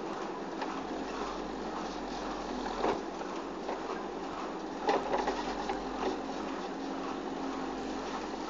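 Backhoe loader's diesel engine running steadily under hydraulic load as its boom lifts a young palm tree out by the root ball, with a few sharp knocks about three and five seconds in.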